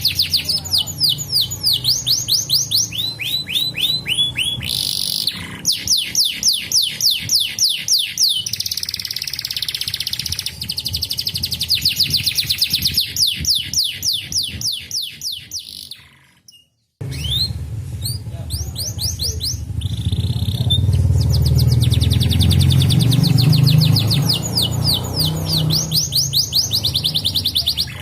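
Canary singing in fast rolling trills of quickly repeated, falling notes, changing from one trill to the next every second or two. About two-thirds of the way through the song cuts out briefly, and afterwards a low rumble runs underneath it for several seconds.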